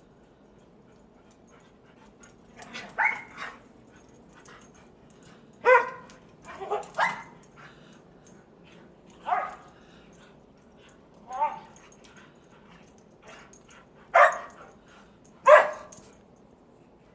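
A dog barking in short, separate barks, about seven of them spaced one to three seconds apart.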